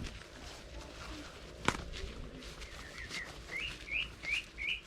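A single sharp click, the loudest sound, about a second and a half in. Then a bird calls a quick series of about six short rising notes over the last two seconds.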